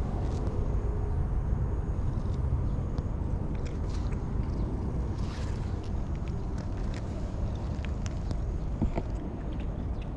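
A cat grooming itself, its tongue licking its fur in faint scattered clicks, over a steady low rumble. A short rustle about five seconds in.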